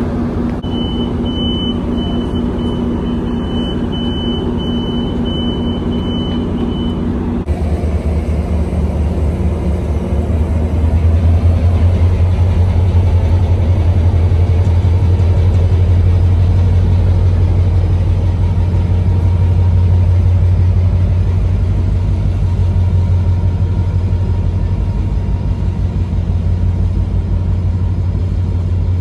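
Metrolink commuter train's door chime beeping about eight times over the first seven seconds. Then its diesel locomotive's engine rumbles loudly, swelling about four seconds later, as the train pulls out of the station.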